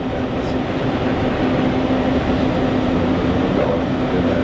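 Engine and road noise inside a moving coach: a steady drone with a constant low hum.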